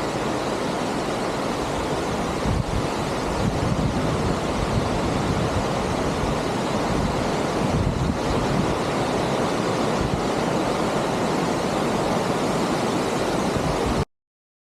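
Steady rushing roar of the Shaki Waterfall, with wind buffeting the microphone from a couple of seconds in. The sound cuts off abruptly near the end.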